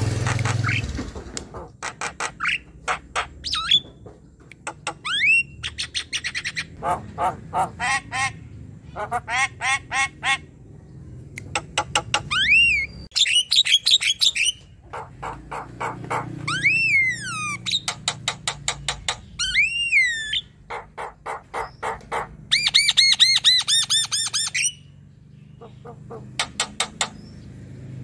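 Javan myna singing in full song: runs of rapid, harsh repeated notes broken by several loud whistles that rise and fall, with a short pause near the end.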